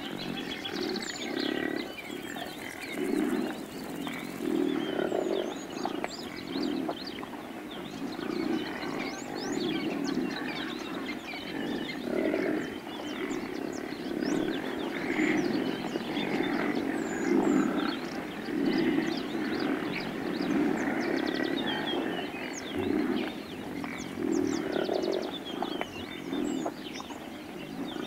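Low animal calls, grunts or bellows, repeating irregularly and overlapping, with birds chirping throughout.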